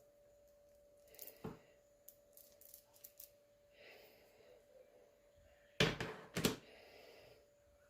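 Handling noises from a small tool being inspected by hand: scattered clicks and short rustles, then two loud knocks close together about six seconds in, over a faint steady hum. The engine is not running.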